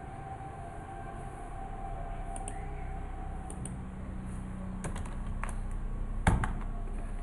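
Scattered clicks of a computer keyboard and mouse as a few keys are typed, with one sharper, louder click about six seconds in. A steady low hum runs underneath.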